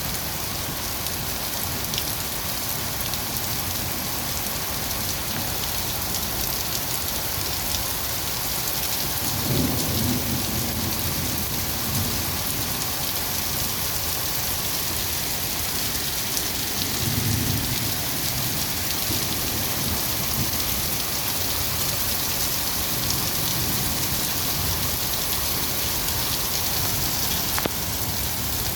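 Heavy rain falling steadily, with two low rolls of thunder, one about ten seconds in and another around seventeen seconds.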